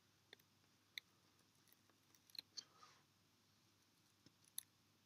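Near silence broken by a handful of faint, scattered clicks as fingertips press double-sided tape down onto a small glass slide.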